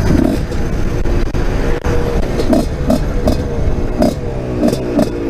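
Husqvarna SMS 125's single-cylinder two-stroke engine running, its pitch wavering, with several short louder surges in the second half.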